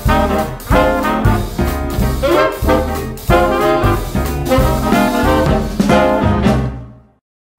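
Upbeat jazzy swing background music with brass, fading out near the end into a moment of silence.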